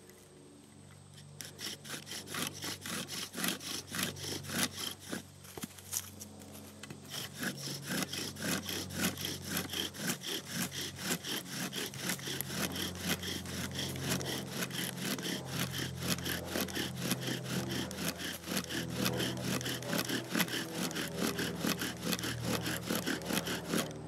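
Bow drill in use: the bow saws back and forth in rapid, even strokes, the wooden spindle grinding in the fireboard under a self-lubricating fatwood bearing block. The strokes start about a second and a half in, ease briefly a few seconds later, then run steadily until they stop right at the end. This is the drilling that builds a coal, and the hearth is smoking by the finish.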